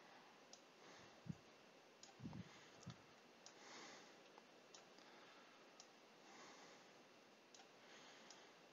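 Near silence with faint computer-mouse clicks, about eight spaced irregularly, as fields are picked up and dropped in a drag-and-drop editor, and a few soft low thumps in the first three seconds.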